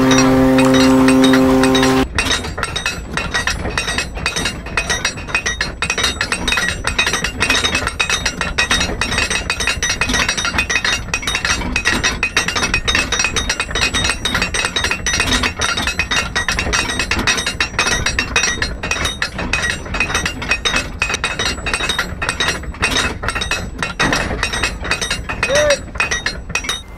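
Music with a few held notes, cut off about two seconds in. Then a hand-cranked mast windlass on a Thames sailing barge, its ratchet and gears clicking rapidly and unevenly as the mast is wound up.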